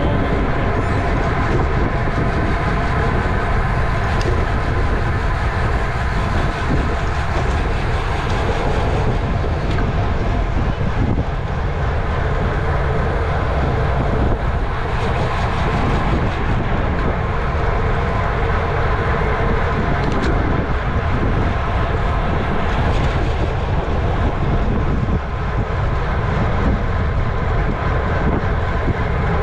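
Wind rushing over the microphone of a racing bicycle's camera at race speed, a steady heavy rumble, with a steady whir from the moving bike over it.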